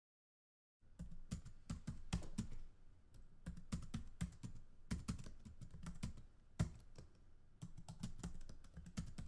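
Typing on a computer keyboard: a quick, irregular patter of key clicks starting about a second in, with one sharper keystroke past the middle.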